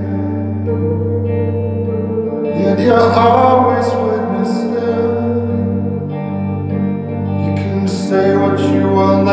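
Recorded music played through open-baffle full-range loudspeakers driven by an F2a single-ended tube amplifier. In this stretch an instrumental passage holds a steady low bass note under sustained chords, swelling about three seconds in and again near the end.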